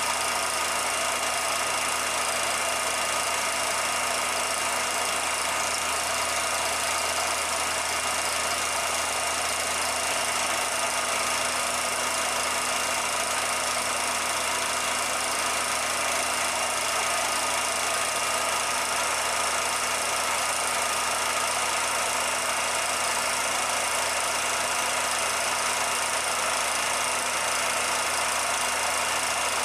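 Steady, unchanging hum and hiss with a few fixed tones and no distinct events, a machine-like noise bed laid over a silent film.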